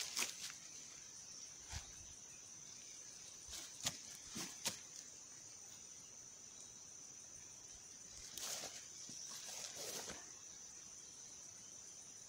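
Steady high-pitched chirring of insects, with a few faint clicks in the first half and two brief rustling noises later on.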